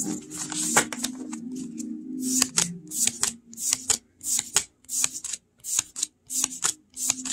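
Oracle cards being slid off a hand-held deck one at a time as they are counted: a quick papery flick about twice a second.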